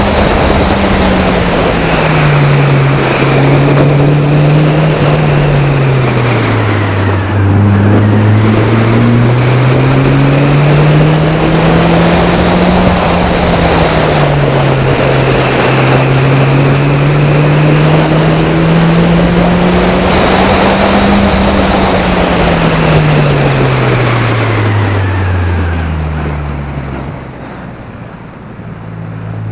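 Toyota Celica Gen 7's 1.8-litre VVT-i four-cylinder engine driven hard up a hill climb course, with wind noise. The engine note rises and falls repeatedly through the gears and bends, with a quick drop and jump in pitch at about a quarter of the way in. Near the end it winds steadily down as the car slows, then settles to a quieter, low, steady running note.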